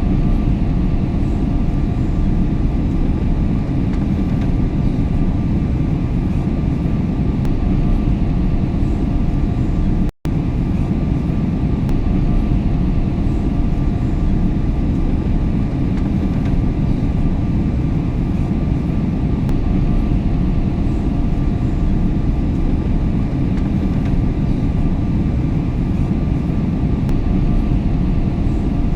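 Airliner cabin noise in cruise flight: a steady, loud, deep rumble of engine and airflow, with a faint steady whine above it. The sound cuts out for an instant about ten seconds in, then resumes unchanged.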